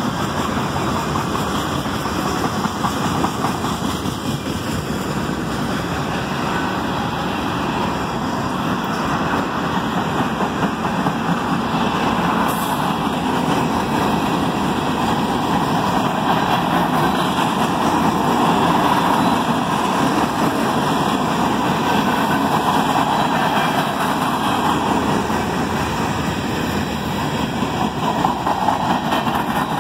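CSX freight train cars rolling past on the rails: a steady, continuous noise of steel wheels on track.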